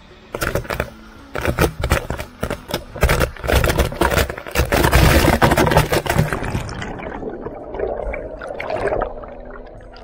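Waterfall water rushing and splashing, overlaid for the first six seconds or so by loud, dense crackling hits on the microphone, then easing into a steadier rush.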